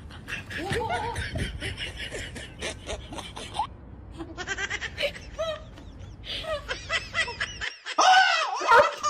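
People laughing in short bursts, getting louder near the end.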